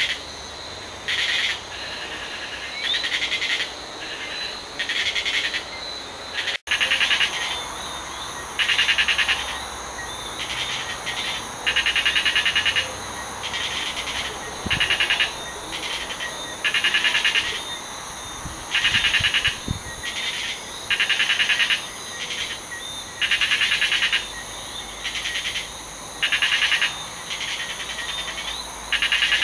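Caribbean tropical night chorus of insects and frogs: loud buzzy, pulsed calls in bursts of about a second, repeating every one to two seconds, over a continuous high-pitched insect trill. The sound cuts out for an instant about six and a half seconds in.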